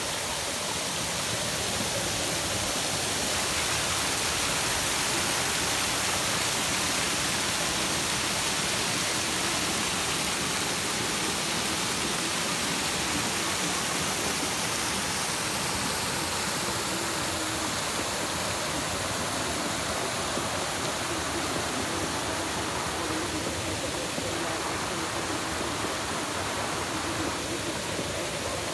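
Stream water rushing steadily close by, as in a small cascade, a constant, even sound of running water.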